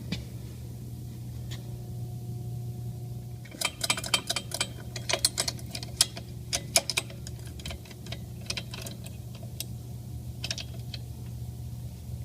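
Light metallic clicks and clinks of a steel bracket and its pins being handled, coming in a quick flurry a few seconds in and again later, over a steady low hum.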